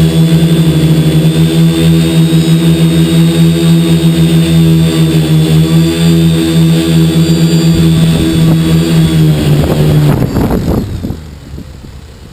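Quadcopter's 2212 brushless motors and propellers running with a steady, high buzzing whine. About ten seconds in the pitch wavers and the sound dies away as the motors spin down, as at a landing.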